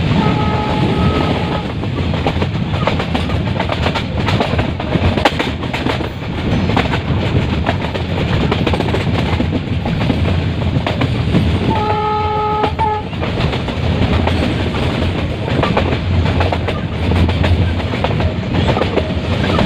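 Metre-gauge passenger train running, with a steady rumble and wheels clattering over the rail joints, heard from on board. The locomotive horn sounds twice, each blast just over a second long: once near the start and again about twelve seconds in.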